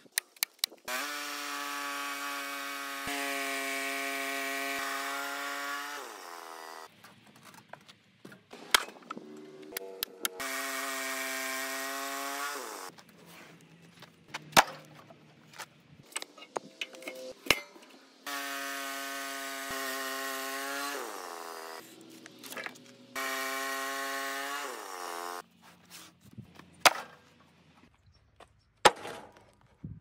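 Woodland Mills portable bandsaw sawmill running with a steady pitched sound in four stretches, each one sliding down in pitch as it stops. Between the stretches come sharp wooden knocks as slabs and boards are handled.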